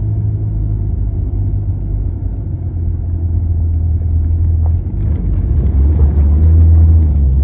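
Car engine and road rumble, a steady low drone that grows louder about five seconds in.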